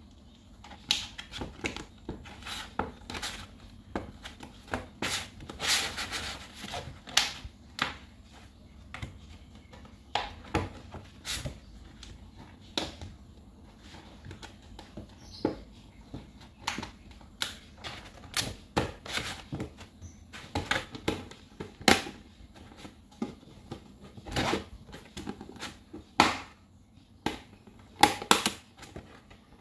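Hard plastic panels of a folding shoe box clicking, knocking and snapping together as they are handled and fitted into place. The clicks come irregularly, a few every second or two, with a longer scraping, rubbing stretch about five to seven seconds in.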